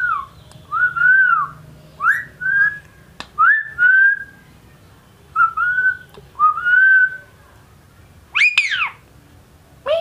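About nine short whistled notes, each rising then falling in pitch, followed by two sharp, harsh calls from an Indian ringneck (rose-ringed) parakeet, one about eight and a half seconds in and one at the very end.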